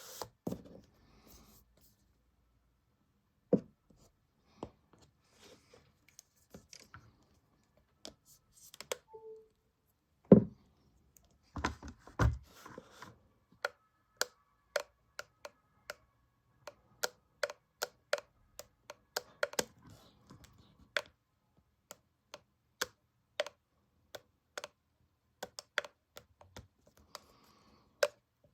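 Apple MagSafe Battery Pack making irregular sharp clicks, sparse at first and then coming every half second to a second, with two heavier knocks about ten and twelve seconds in. The owner takes the clicking for a defect of an early unit.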